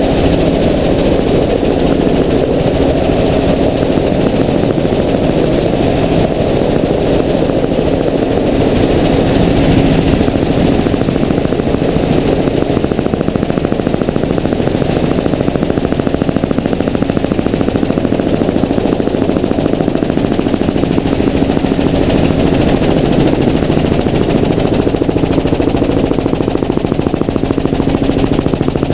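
Steady, loud rotor and engine noise from the aircraft carrying the camera, with a constant hum.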